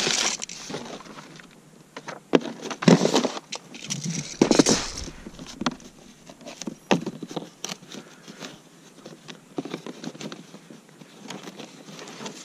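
Foam packing insert and cardboard box being handled and rummaged through, giving irregular rustling and scraping with small knocks and clicks. The louder scrapes come in the first five seconds.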